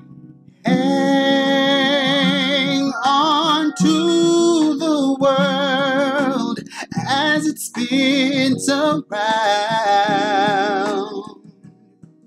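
A man singing solo, slow and sustained, starting about half a second in. He holds long notes with a heavy vibrato and takes short breaks between phrases, landing on the word "spins" near the end.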